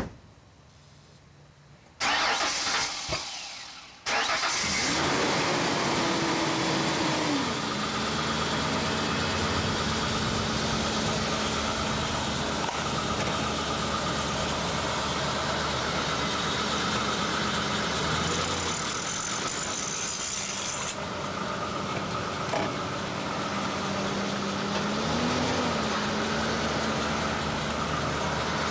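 A short loud burst of noise, then a motor-driven machine switches on about four seconds in and runs steadily. Its hum drops in pitch over the first few seconds and then holds level.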